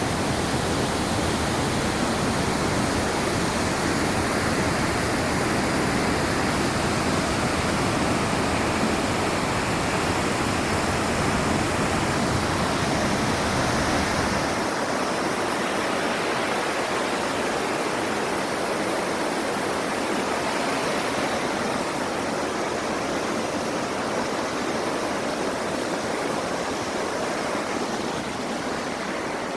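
Mountain stream rushing over rocks: a steady, loud rush of water. A low rumble underneath drops away about halfway through.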